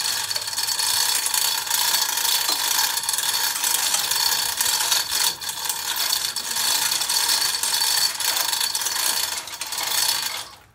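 Manual chain hoist being lowered by its hand chain: a continuous, noisy ratcheting clatter of the pawl and rattling chain that stops abruptly near the end.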